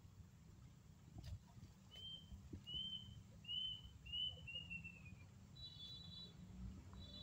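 A small bird calling: a run of five short chirps, each falling in pitch, the last one longer, then two brief higher notes near the end, over a low rumble.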